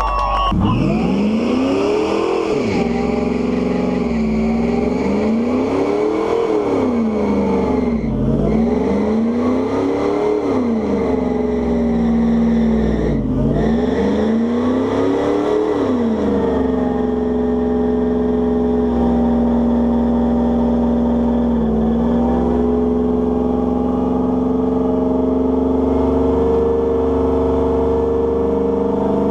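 Pickup truck engine in a burnout, revved up and down repeatedly, then held at a steady high pitch from about halfway through while the rear tyres spin and smoke.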